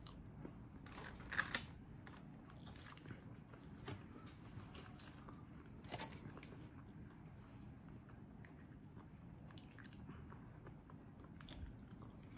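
A person chewing food close to the microphone, with faint, scattered mouth clicks and two louder crunchy bursts, the loudest about a second and a half in and another about six seconds in.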